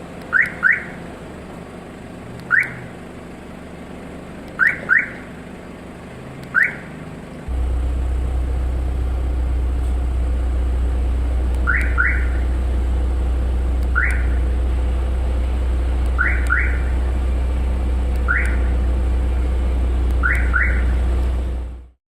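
Answer-back siren of an aftermarket keyless entry system on a 1998 Mazda Roadster, chirping to confirm the locks. Short rising chirps alternate between a double chirp and a single chirp, about every two seconds. A loud, steady low rumble comes in about seven and a half seconds in and runs under the later chirps.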